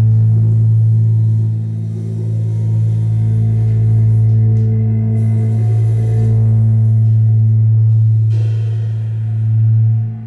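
Chamber ensemble playing a sustained low drone: one deep steady tone with overtones held unchanging. A brighter, thicker layer joins about eight seconds in, and the drone swells just before it falls away.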